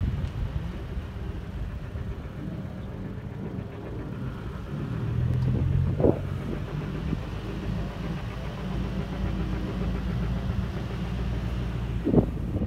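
Toyota Hilux pickup engine running under load as it drives across soft sand dunes, a steady low rumble that grows fuller about five seconds in. Two short thumps come at about six seconds and near the end.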